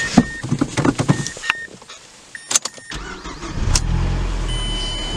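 A 2007 Mazdaspeed 6's turbocharged 2.3-litre four-cylinder being started: a few clicks and short chime beeps, then the engine catches about three seconds in, flares briefly and settles into a steady idle through the stock exhaust.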